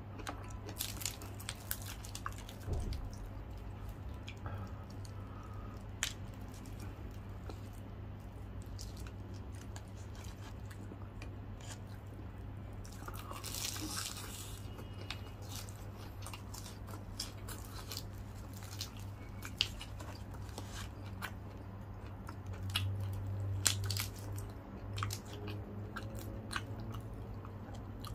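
Close-miked biting, chewing and crunching of a crispy deep-fried chicken leg quarter, with many sharp crackles and one longer crunchy bite about halfway through. A steady low hum runs underneath.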